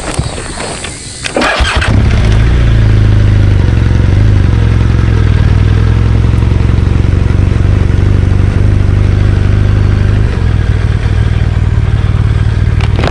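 A BMW R1200GS Adventure's flat-twin boxer engine starts about a second and a half in and settles into a steady idle, easing slightly near the end.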